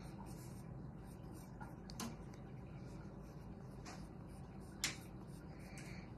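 Faint pencil sketching on paper, with two sharp clicks, about two seconds in and near five seconds, over a low steady room hum.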